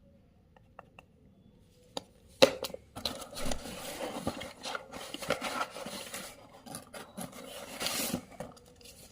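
Packaging being handled during an unboxing: a few light clicks, a sharp knock, then about five and a half seconds of scraping and rustling broken by small taps.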